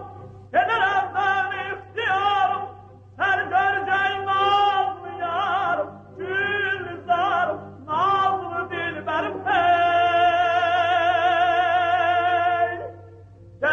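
A voice singing separate melodic phrases, ending on a long held note with wide vibrato. A low steady hum runs underneath.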